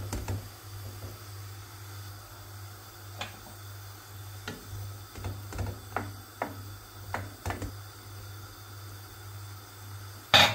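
Wooden spoon stirring cubed beef in a pot, scraping and knocking against the pan in a scatter of short clicks, with a faint simmer of the meat cooking in its own released juices. One louder sharp clack comes near the end.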